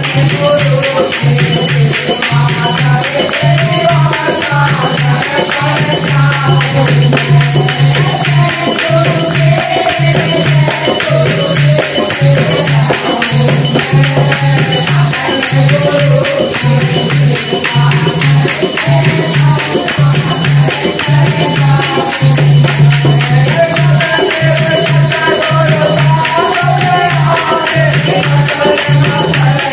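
Devotional bhajan kirtan: a man singing the melody while a dholak beats a steady, even rhythm, with jingling hand percussion and hand clapping on the beat.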